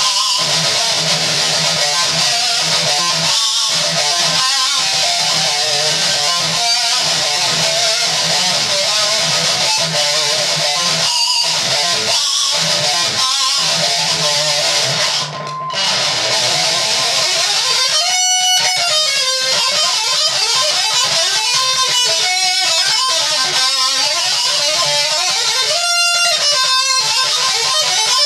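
Ibanez electric guitar played through heavy distortion, fast lead runs and riffs. There is a brief break in the playing about halfway through.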